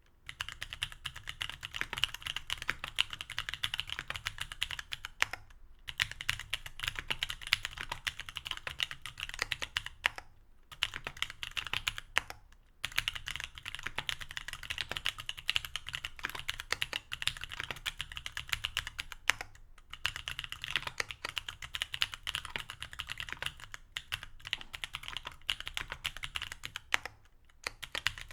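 Fast, steady typing on a mechanical keyboard with C³Equalz X TKC Kiwi tactile switches (67 g, stock), aluminium plate and GMK keycaps: a dense run of keystroke clacks, broken by a few short pauses.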